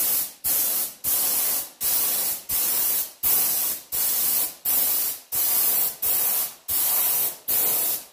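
Compressed-air gravity-feed spray gun spraying paint in short, evenly repeated passes, about one and a half a second: each a loud hiss that starts sharply and tails off as the trigger is let go.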